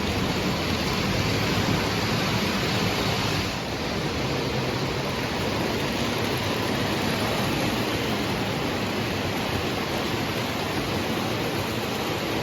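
O gauge model train running on its track layout: a steady, loud rolling rumble of wheels on rail.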